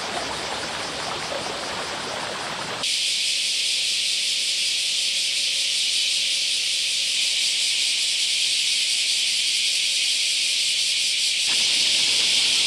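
Steady outdoor ambience, a continuous hiss with no distinct events. It switches abruptly about three seconds in to a brighter, higher hiss, and some lower sound comes back near the end.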